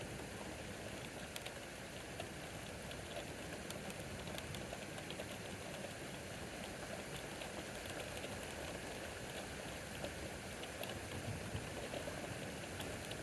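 Steady thunderstorm rain, an even hiss with scattered sharp ticks of drops striking nearby surfaces.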